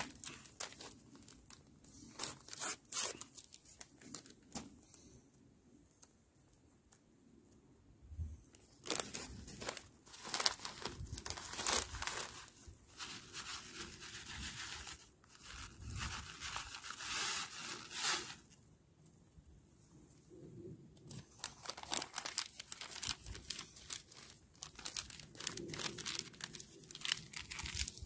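A plastic instant-noodle packet crinkling and tearing open, and dry noodles being broken up and crumbled into an aluminium mess tin, in several bouts of crackling.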